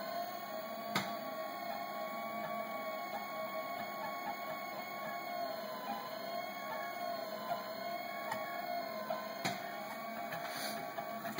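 Stepper motors of a filament-drive delta 3D printer whining as they move the carriages during a print, the pitch wavering up and down with each move. A few sharp clicks land about a second in and twice near the end.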